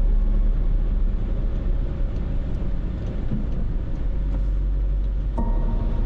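Car driving in rain: a steady low rumble of tyres and road noise, with a few faint ticks. Music chords come back in about five seconds in.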